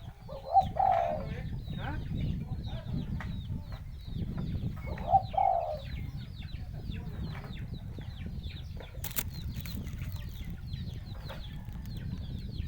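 Birds calling: two short, louder calls about four and a half seconds apart over many quick, high, falling chirps, with a low rumble underneath.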